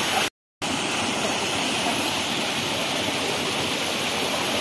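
Shallow forest stream running over rocks and boulders: a steady rush of water, broken by a moment of silence near the start.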